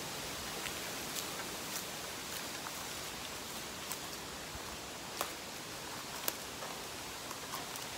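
Wind rustling steadily through the leaves of a bamboo grove, with scattered light clicks and ticks, the sharpest a little after five and six seconds in.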